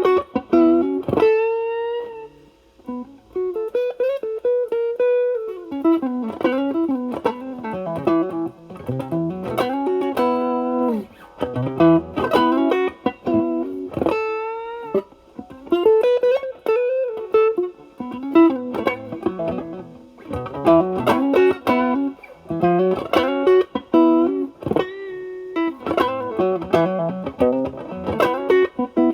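Electric guitar (Fender Stratocaster with single-coil pickups) through an Ibanez Tube Screamer Mini overdrive pedal at low drive, into a Marshall Valvestate amp's clean channel, giving a lightly driven, mostly clean tone. It plays improvised single-note licks and double-stops with string bends.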